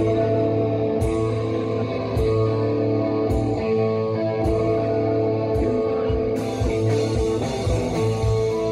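Rock music: distorted electric guitar chords held over bass and drums, with a cymbal hit about once a second and a steadier cymbal wash from about six seconds in.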